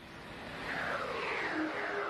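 A motor vehicle sound effect swelling in from silence, with a series of falling sweeps about every half second and a steady hum joining near the end.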